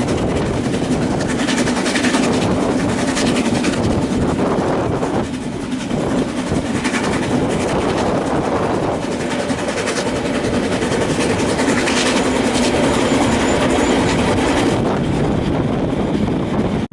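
Narrow-gauge steam train of the Harz railway running along the track: a steady, loud running noise with clatter from the wheels over the rails.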